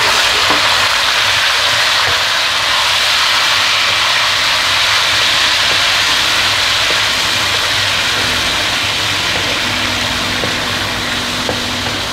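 Thinly sliced raw chicken and chopped garlic sizzling in hot oil in a non-stick wok: a steady frying hiss, with a few faint ticks of a wooden spatula stirring.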